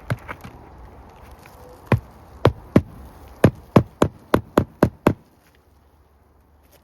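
Hammer driving roofing nails back into their old holes through a roof shingle: a few light taps, then a run of about ten sharp strikes that come faster, at about three a second, toward the end.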